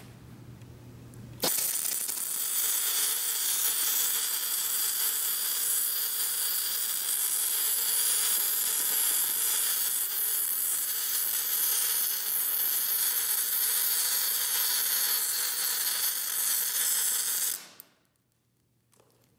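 MIG welding arc running one continuous vertical-down (downhill) bead on thick steel plate: a steady, even hiss that starts sharply about a second and a half in and cuts off abruptly about two seconds before the end.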